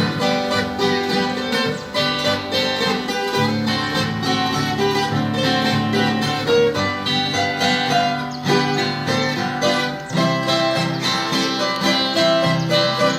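Instrumental introduction of a Brazilian caipira song played on plucked acoustic string instruments, a guitar with a bright, twangy plucked part, before any singing.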